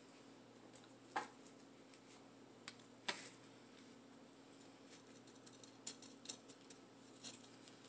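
Faint, scattered light clicks and taps, about seven spread through, from hands working top-dressing grit and a plant pot during repotting, over a low steady hum.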